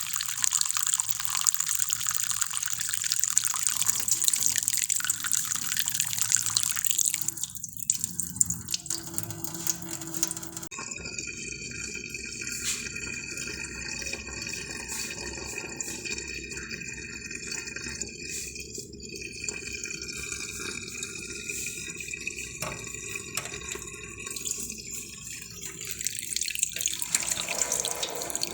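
Running water splashing, louder for the first several seconds, then quieter with a steady high tone from about ten seconds in.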